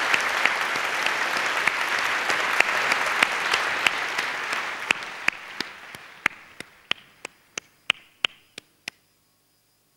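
Theatre audience applauding. The clapping thins out from about four seconds in to a few separate claps and stops a second before the end.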